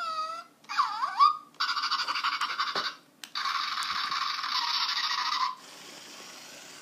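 Zhu Zhu Puppies battery toy puppy: its electronic voice gives a couple of short gliding yips, then its small drive motor whirs in two runs, about a second and then about two seconds long, as the toy rolls along.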